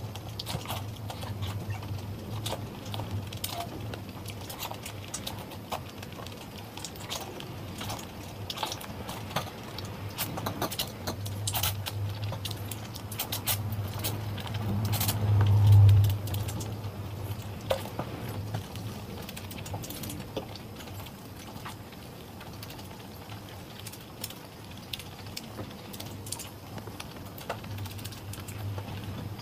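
Close-miked eating: chewing with many small wet mouth clicks, and a louder low swell about halfway through as a mouthful of noodles is slurped from a fork.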